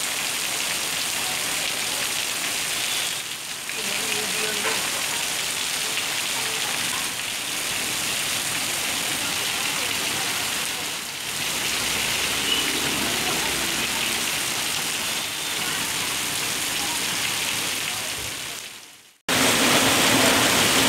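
Heavy rain pouring steadily onto a street and pavement in a downpour. About 19 seconds in the sound fades out, then cuts back in louder.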